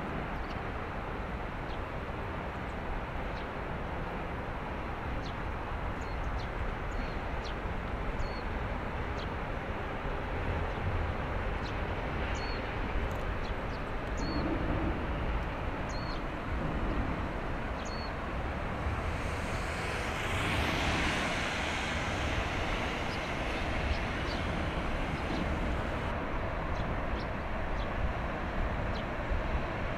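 Bulk carrier passing close by: a steady low rumble from its engine and the water moving along its hull. A rushing hiss swells and fades about two-thirds of the way through.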